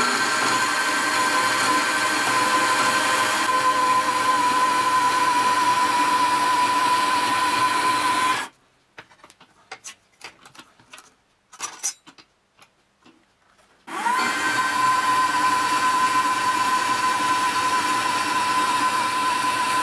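Metal-cutting bandsaw running and cutting a metal flat bar, its motor a steady whine. It stops abruptly about eight seconds in, followed by a few light clicks and knocks. About five seconds later the motor spins up again with a rising whine and carries on cutting.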